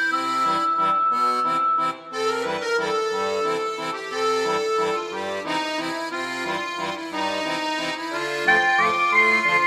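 Background music led by an accordion, with held melody notes over a moving bass line.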